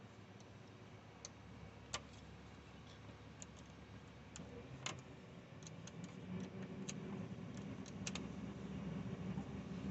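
Scattered light clicks and taps at uneven intervals, the loudest about two and five seconds in and a quick pair near eight seconds, over a low rumble that grows louder from about six seconds in.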